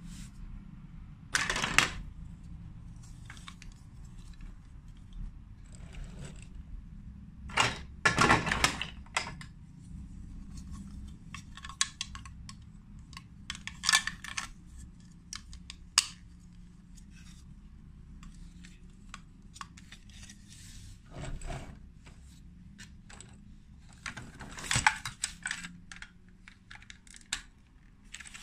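Lego Duplo plastic bricks and parts being handled and pressed together: irregular clicks, taps and clattering, with louder clusters every few seconds, over a steady low hum.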